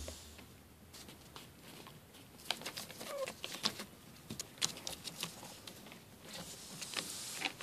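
Schipperke puppies' paws pattering and scratching on newspaper, as scattered light ticks and rustles, with a short squeak about three seconds in.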